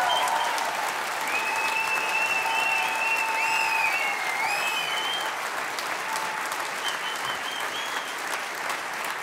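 Concert audience applauding at the end of a live song, easing slightly toward the end.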